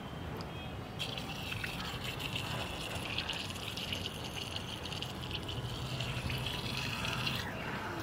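Water trickling and splashing into a tub, a steady hiss that starts about a second in and stops abruptly near the end.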